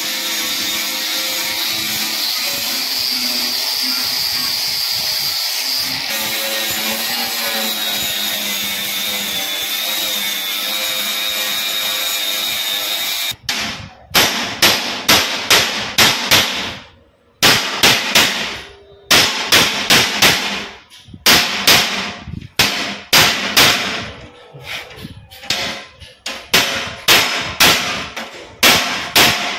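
Angle grinder with a flap disc grinding down an aluminium weld seam, a steady whine that wavers slightly under load. About thirteen seconds in it stops, and a hammer starts striking the aluminium sheet in quick runs of ringing blows, about two a second, with short pauses between the runs.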